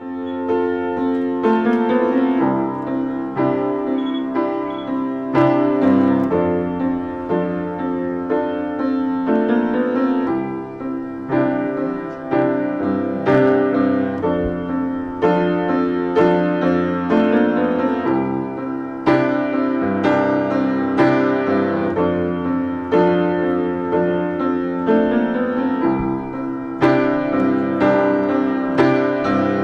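Piano music: a melody over chords, with new notes struck every half second to a second.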